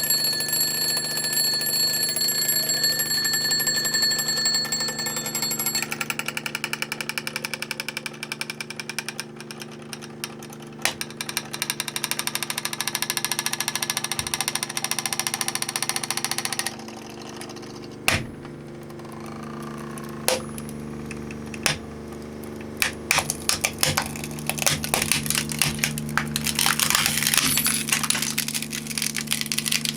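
Twin-bell alarm clock ringing, its hammer striking rapidly between the two bells, then stopping about seventeen seconds in. Scattered sharp cracks and snaps follow and grow into dense crackling near the end, as the clock's case breaks under crushing. A steady low hum runs underneath.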